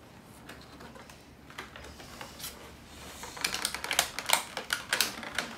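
Clear plastic toy packaging crinkling and crackling as it is handled and pulled open. Faint at first, then a quick run of sharp crackles starting about three and a half seconds in.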